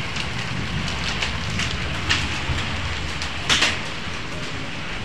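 Hail and rain falling steadily, a constant hiss with scattered sharp ticks of hailstones striking; the loudest cluster of strikes comes about three and a half seconds in.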